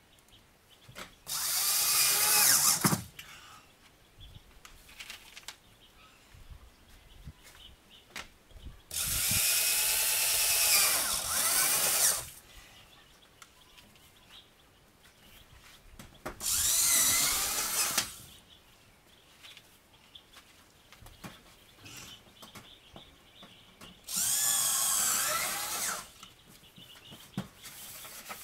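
Handheld electric drill running in four separate bursts of two to three seconds each, its pitch rising and falling within each run, with faint knocks and clicks between the bursts.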